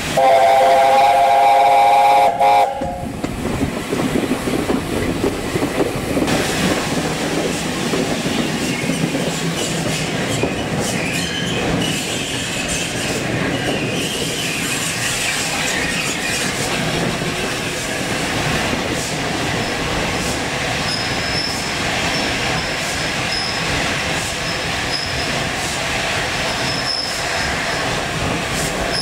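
A4 Pacific steam locomotive's chime whistle sounds one loud held chord for about two and a half seconds. The train then runs on with the steady clatter of wheels over rail joints, and a thin high wheel squeal comes in about two-thirds of the way through.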